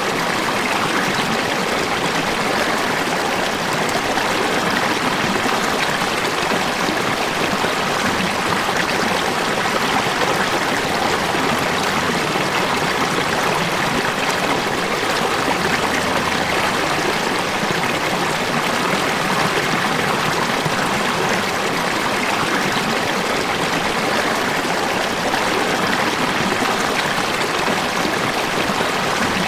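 Falling water running steadily, an even, unbroken sound with no distinct splashes or changes.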